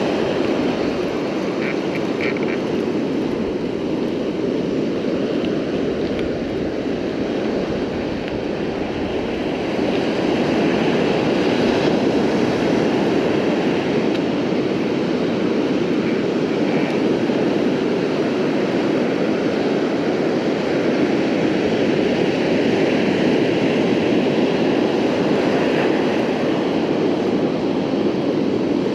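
Steady rushing noise of ocean surf and wind, slowly swelling and easing.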